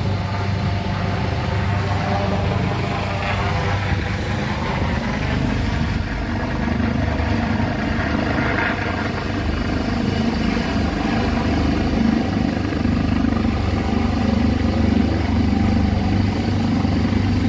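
Helicopter's rotor and engine running steadily as it flies low and slowly towards the listener, growing slightly louder near the end.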